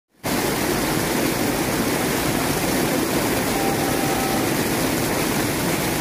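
Muddy river water pouring over the concrete lip of a small weir and foaming over rocks below it: a steady, full rush of falling water.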